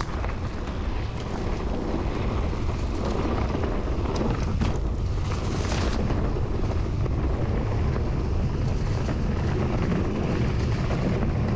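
Wind buffeting the camera microphone and tyres rumbling over a dirt trail as a Haibike FullSeven LT5.0 electric mountain bike descends at speed, with a few light clicks and rattles from the bike about halfway through.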